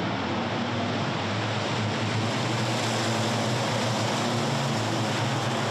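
A pack of race trucks passing at speed, many big diesel engines sounding together as one steady, dense noise with a low hum.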